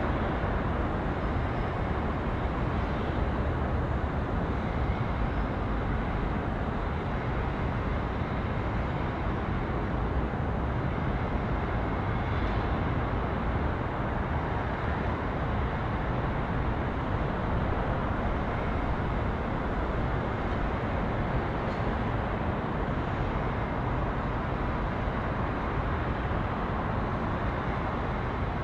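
Steady, deep urban rumble of engines and traffic, even in level throughout.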